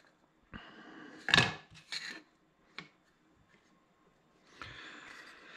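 Small plywood squares being slid across a workbench and set down on a steel chainsaw bar: a few light wooden knocks, the loudest about a second and a half in, with scraping and rubbing around them. More rubbing starts near the end.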